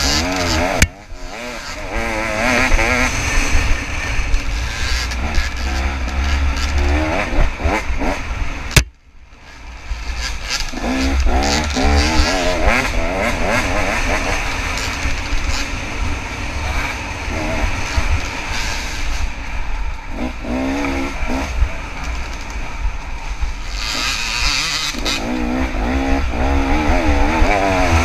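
Two-stroke dirt bike engine (KTM 300) revving in uneven surges, its pitch wavering up and down, with other dirt bikes running around it. About nine seconds in there is a sharp click and the sound drops away for about a second before the engine revs up again.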